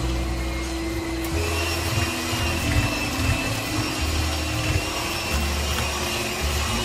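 Moulinex electric hand mixer running steadily, its beaters whipping a thick cream and cream-cheese mixture in a bowl: a steady motor whine over a wavering low churn.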